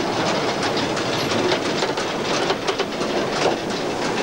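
Steam locomotive 434.1100, a 2-8-0, under way, heard from inside its cab: a steady, dense clatter with many short sharp knocks from the moving locomotive and its wheels on the track.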